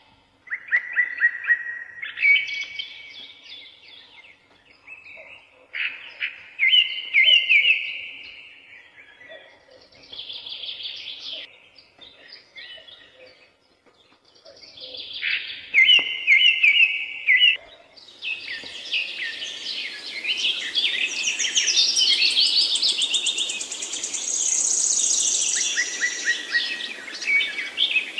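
Birds chirping and singing in short, separate phrases. From about two-thirds of the way in, several birds call at once in a denser, unbroken chorus.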